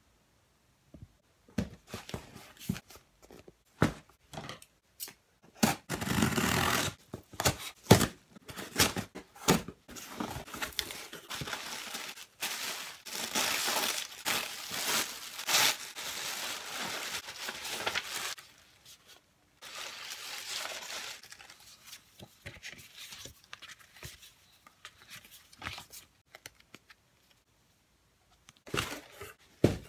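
Kraft-paper packing in a cardboard shipping box being unwrapped: stretches of paper crinkling and tearing, with seal stickers peeled off and sharp knocks of the cardboard box now and then.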